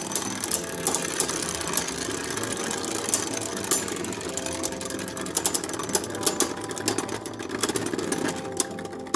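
Two Beyblade Burst Turbo Hercules H4 tops spinning in a plastic stadium: a steady whirring of their tips on the stadium floor, with many sharp clicks as they knock together.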